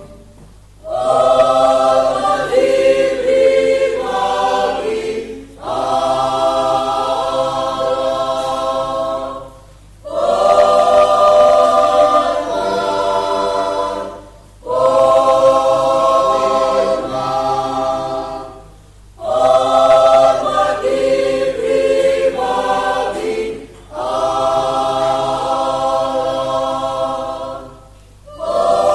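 Mixed choir of men's and women's voices singing a hymn in sustained chords. The phrases last about four seconds each, with short breaks between them.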